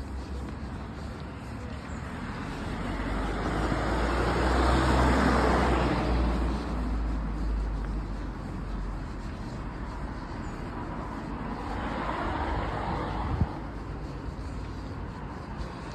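A car passing on the street, its tyre and engine noise swelling to a peak about five seconds in and fading away, then a fainter second pass a few seconds before the end. A single sharp tap comes just after the second pass.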